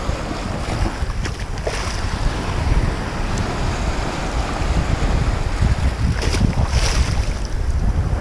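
Onshore wind buffeting the microphone over breaking surf, a steady low rumble with a couple of brief hissy bursts. The sea is getting rough as the wind comes in off the sea.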